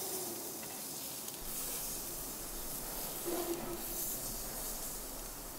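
Chicken thighs sizzling on the hot grate of a Weber Q gas grill as they are turned skin side down, a steady hiss.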